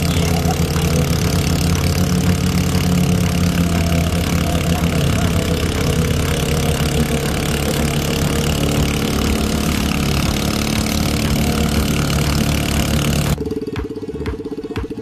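A scooter engine driving a small homemade foam boat, running steadily under a loud hiss. It cuts off abruptly near the end, where a quieter steady tone with a regular beat takes over.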